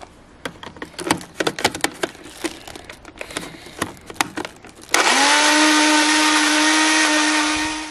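Personal bullet-style blender: several clicks and knocks as the filled cup is fitted and locked onto the base, then about five seconds in the motor starts, quickly rises to a steady whine and runs for nearly three seconds, blending chillies, garlic and oil into a sauce, cutting off near the end.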